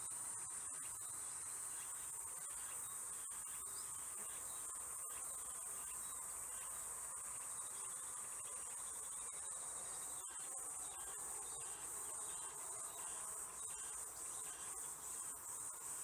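A steady, high-pitched insect chorus of summer woodland insects, with a weaker lower steady drone beneath. Near the end the high note begins to pulse.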